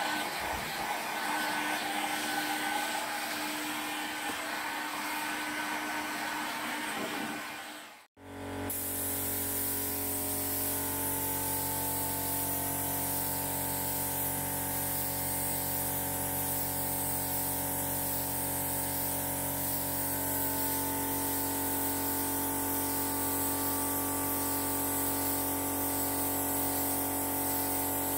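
A hot air gun blowing steadily over a board. The sound cuts off suddenly about eight seconds in, and then a compressed-air paint spray gun hisses steadily, with a steady hum underneath.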